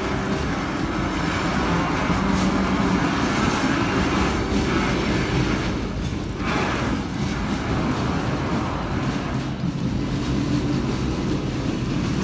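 CSX diesel locomotive pulling away, its engine a steady low drone over rail noise, with a brief swell of noise about midway.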